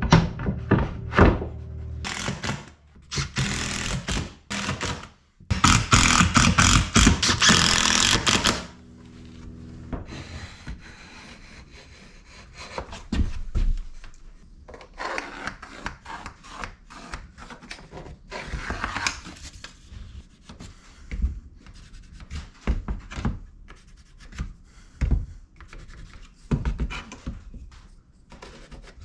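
Cordless drill boring fastener holes in mahogany trim in two runs of a few seconds each. Scattered knocks, taps and rubbing follow as the wood is handled and fitted.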